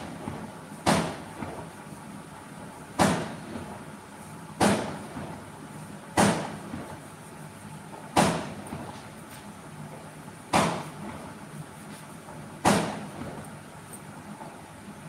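A series of sharp knocks, about seven, one every two seconds or so at uneven spacing, each dying away over about half a second.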